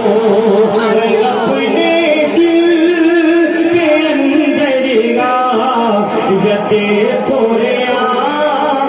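A man singing a kalam, an Urdu devotional poem, into a microphone in long held, ornamented melodic lines.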